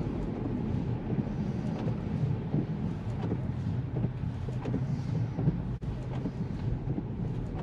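Steady road and tyre rumble heard inside a Tesla's cabin while it drives on wet pavement, with no engine sound since the car is electric. The sound drops out very briefly about six seconds in.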